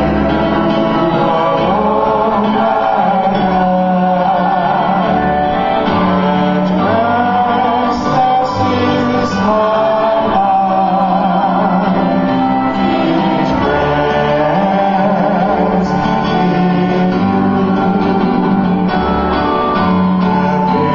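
A man and a woman singing a song into microphones over instrumental accompaniment with held bass notes, amplified through a sound system.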